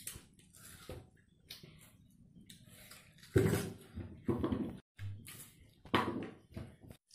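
Children eating watermelon slices and handling the plates on a table: scattered short bites and slurping noises with small knocks of plates. The loudest bursts come about three and a half, four and a half and six seconds in.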